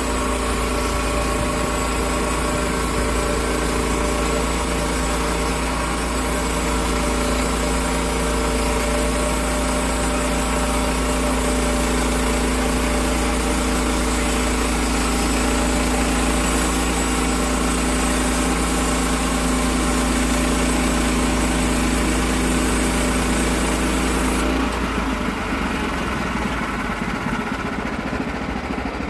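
Gasoline engine of a portable sawmill running steadily through a cut in an oak log. About 25 seconds in, the engine note changes and the sound thins out.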